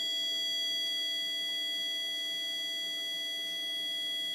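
Mini fire alarm sounder on its continuous tone setting, set off by its test key and giving one steady, unbroken high-pitched tone.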